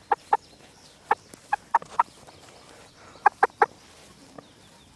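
Chickens clucking: short, sharp clucks in small clusters of two or three, about nine in all.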